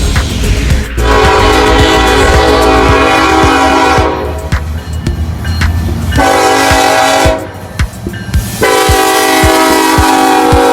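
Freight locomotive air horn sounding three blasts: a long one, a short one, then another long one still going at the end. Under it run the low rumble of the passing train and rhythmic wheel clicks over the rail joints.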